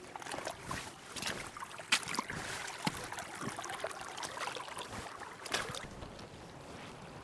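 Irregular knocks, scrapes and splashes of someone moving in shallow water, with trickling water behind; the sharpest knocks come about two seconds in and again near the end.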